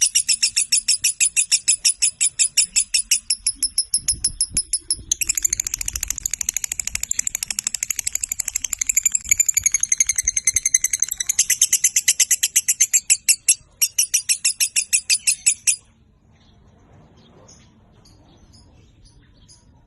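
Lovebird chattering in a long run of rapid, high-pitched chirps, about five a second, which thickens into a near-continuous trill in the middle and stops abruptly about 16 seconds in; faint scattered chirps follow.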